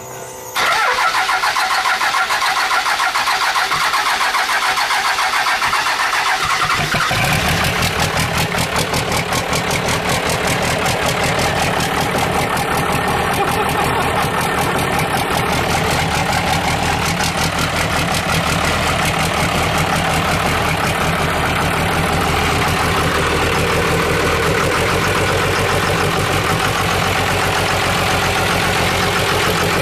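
Twin-turbo 12-valve Cummins 5.9 inline-six diesel in a first-gen Dodge pickup being started to check for leaks after head-stud work. It turns over with a rapid, even chatter, then about seven seconds in catches fully and settles into a steady, deeper-sounding run.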